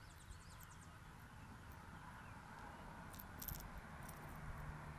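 Quiet lakeside ambience. A bird gives a quick trill of rapid high chirps in the first second, and a few faint high clicks come about three seconds in, over a steady low rumble.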